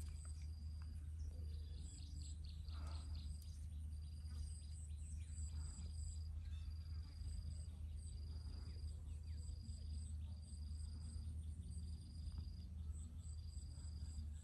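Insects calling: a high trill repeated about once a second, each lasting just under a second with short gaps, with quicker, higher chirps over it and a steady low rumble underneath.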